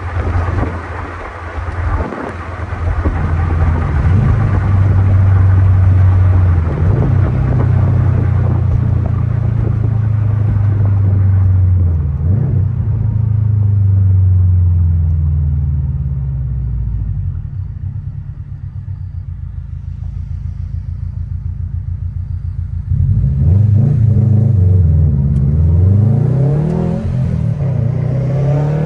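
2021 Subaru WRX STI's turbocharged flat-four running through a Tomei aftermarket exhaust while driving, the revs rising and falling as it pulls through the gears. About seventeen seconds in it eases to a low, pulsing burble, then about twenty-three seconds in it pulls hard again with quick rises and falls in revs.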